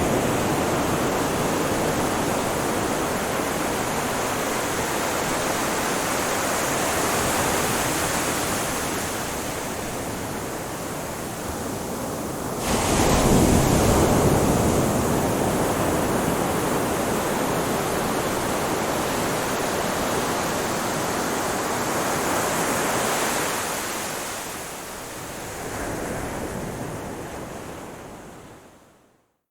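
Ocean waves washing on a shore, a steady rushing surf with a wave breaking suddenly louder about halfway through. The sound fades out to a moment of silence just before the end.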